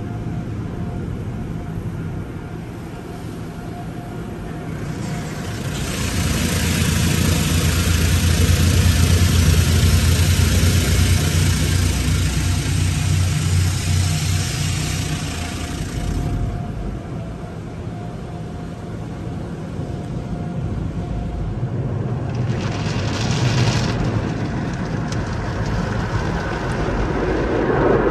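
Automatic tunnel car wash heard from inside the vehicle's cabin: a steady low mechanical rumble, with a loud spray of water hissing and drumming against the body starting about five seconds in and lasting about ten seconds. A second, shorter spray comes about three-quarters of the way through.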